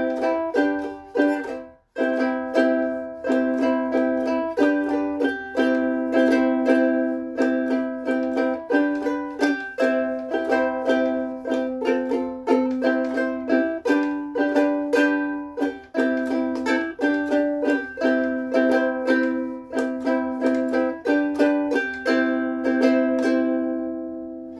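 Ukulele strummed in steady chords, a few strokes a second, with a brief break about two seconds in. Near the end the last chord is left ringing and dies away.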